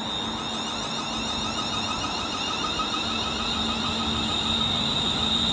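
ScotRail Class 380 electric multiple unit running past the platform: a steady high electric whine over wheel and rail noise, slowly growing louder.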